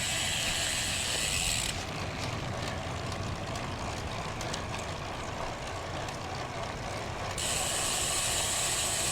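Road bike freewheel ticking steadily as the rider coasts, from about two seconds in until about seven seconds in, with wind rushing over the microphone before and after.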